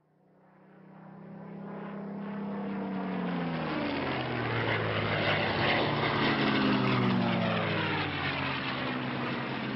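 Propeller aircraft engine running, fading in from silence over the first two or three seconds, its engine note sliding in pitch as it passes.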